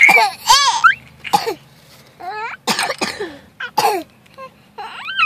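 A young child coughing in several short bursts, with a baby's high-pitched laughter in between.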